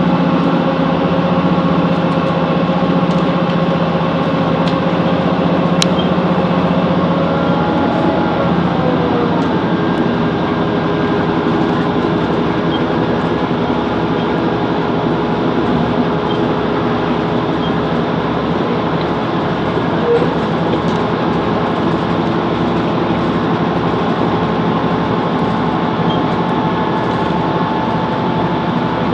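Class 165 Networker Turbo diesel multiple unit running along the line, with a steady engine and running noise. Its engine note drops in pitch about eight seconds in, then holds steady.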